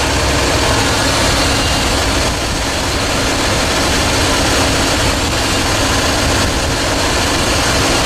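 Dodge Ram 1500 engine idling steadily under the open hood, with the A/C on maximum and its belt-driven compressor turning.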